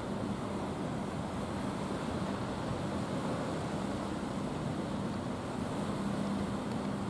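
A small motorboat's engine giving a low, steady hum, heard across open water under steady wind and water noise.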